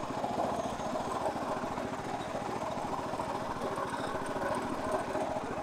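1963 Bolens Husky 600 lawn tractor's small single-cylinder engine running steadily as the tractor drives along, a rapid, even putter.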